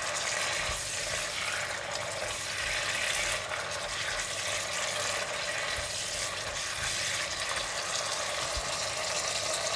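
Green beans sizzling in a thin sauce in a non-stick wok, stirred with a silicone spatula: a steady sizzle with a few soft scrapes and clicks.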